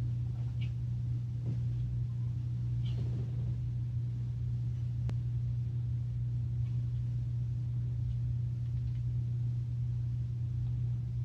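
A steady low hum with a few faint clicks and taps of small metal and plastic engine parts being handled and fitted.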